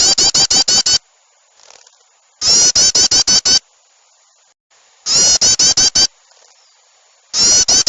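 Looped bird-lure recording of agitated, noisy bird chatter for luring small birds. Loud bursts of about six quick, falling chattering notes repeat every two and a half seconds or so, four times.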